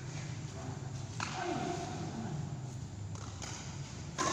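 Badminton rally: sharp hits of rackets on the shuttlecock, about a second in and again near the end, over a low steady hum in a large hall.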